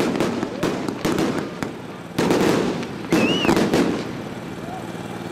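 A 100-shot consumer fireworks cake firing: a quick series of launch pops and bursts, the loudest shots coming about two and three seconds in.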